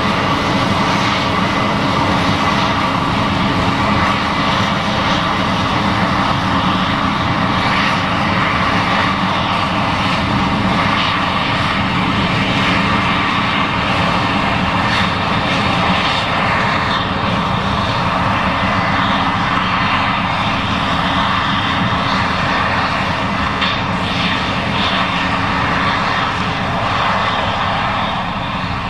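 Case IH 7140 Axial-Flow combine running under load while harvesting corn: a loud, steady engine drone mixed with the even noise of the threshing machinery.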